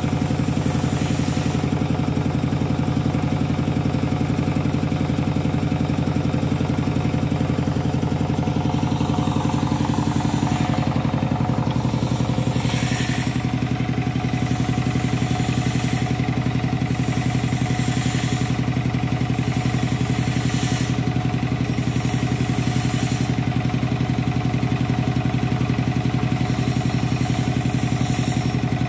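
An engine idling steadily at an even pitch and level throughout.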